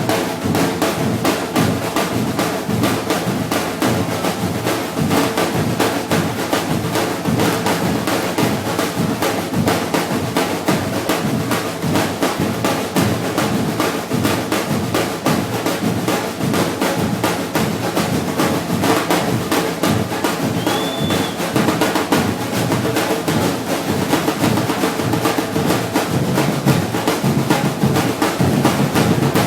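Batucada drum group playing a dense, steady groove of snare-type drums over low bass drums.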